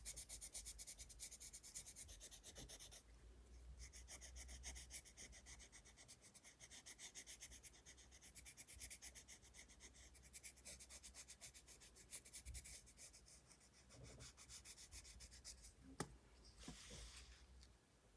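Coloured pencil shading on sketchbook paper: fast, even back-and-forth scratchy strokes. Near the end there is a single sharp click and a short rustle.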